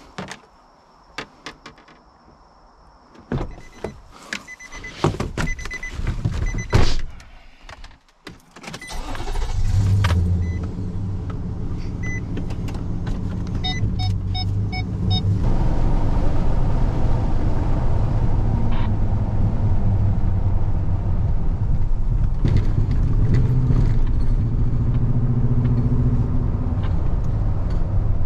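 Nissan Titan pickup being got into and driven off: clicks and knocks of the door and cab with a warning chime beeping, a door slam about seven seconds in, then the V8 engine starts about nine seconds in and runs steadily as the truck drives away, heard from inside the cab. A second burst of chime beeps comes about five seconds after the start.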